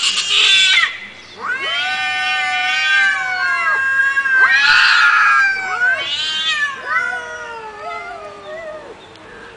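Angry domestic cat caterwauling: a string of long, drawn-out yowls, each lasting a few seconds and wavering up and down in pitch. This is the threatening wail of a cat squaring up to another cat, and the last yowl trails off quieter.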